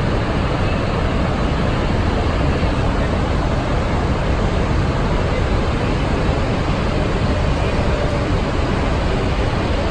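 Niagara Falls' water pouring down: a loud, steady, even rushing noise.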